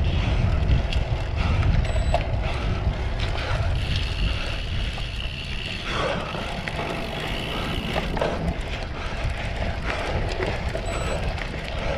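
Cyclocross bike ridden hard over rough grass course, rattling with scattered knocks, under a steady rumble of wind buffeting the microphone.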